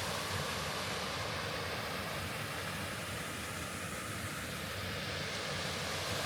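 Rushing water of a small waterfall and creek: a steady, even hiss.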